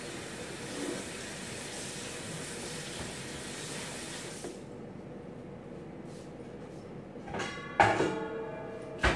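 Water running from a kitchen tap, shut off about four and a half seconds in. Near the end a metal pot clanks, with a loud ringing clang followed by a sharp knock.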